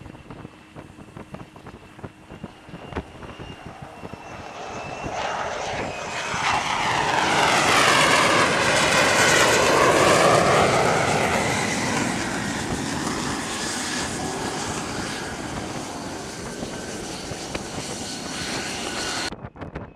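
F-35C's single jet engine (Pratt & Whitney F135 turbofan) as the jet comes in to an arrested landing on a carrier deck. It builds over several seconds to its loudest about halfway through, with a sweeping hiss as the jet passes close, then settles into steady running on deck. The sound changes abruptly just before the end.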